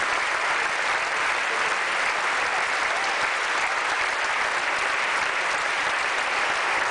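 Large theatre audience applauding steadily, a dense, even clapping of many hands.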